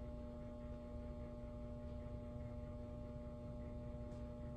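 Steady electrical hum, a few fixed tones over a low rumble, with no other events.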